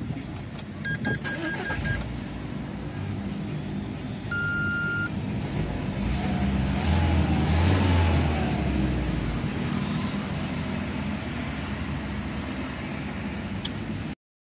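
Renault Clio 4 engine idling, heard from inside the cabin as a steady low hum that swells for a few seconds in the middle. Two short electronic dashboard beeps sound, one about a second in and a clearer one about four and a half seconds in.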